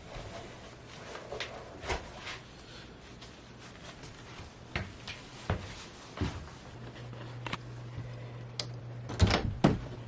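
Scattered light knocks and clicks, with a cluster of louder knocks near the end, over a low steady hum.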